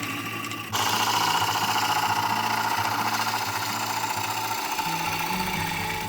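Record Power Coronet Regent wood lathe spinning an oak bowl blank, with a tool working against the turning wood; the hiss of the cut comes in suddenly less than a second in and holds steady.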